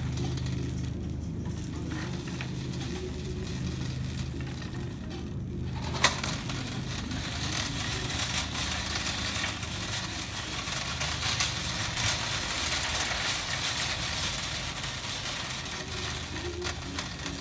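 Wire shopping cart rolling and rattling over a store floor, over a steady low hum. A single sharp knock about six seconds in, after which the rattle gets denser.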